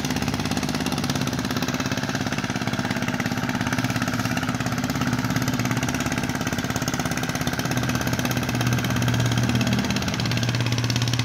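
Engine of a mud boat tiller running steadily in a flooded rice paddy, with a fast even pulse of firing strokes; its note shifts slightly near the end.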